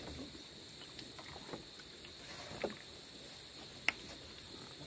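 Faint outdoor background with a steady high-pitched drone, a few faint murmurs, and one sharp click about four seconds in.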